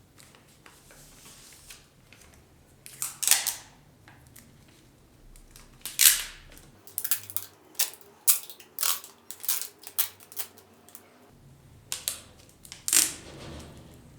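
A series of sharp clicks and knocks, the loudest about 3, 6 and 13 seconds in, with a quick irregular run of smaller clicks in between.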